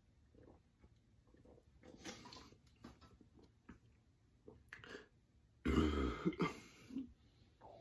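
A man swallowing beer in soft, repeated gulps, then a noisy breath out as he finishes. About six seconds in comes one loud, deep burp lasting under a second, brought up by the carbonation from chugging a 25 oz can of beer.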